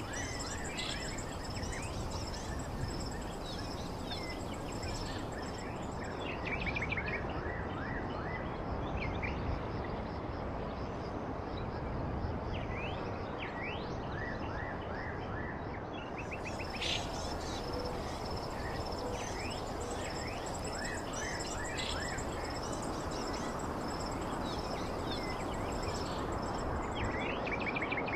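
Forest ambience: small birds calling in short chirps and quick sweeps, off and on, over a continuous high insect trill and a steady background rush.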